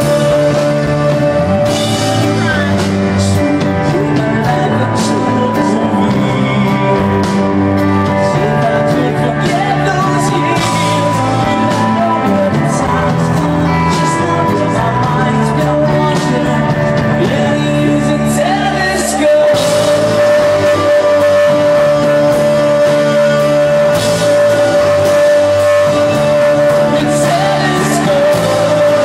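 Live rock band playing: grand piano, electric guitar and drums, with a man singing. The band gets louder about 19 seconds in.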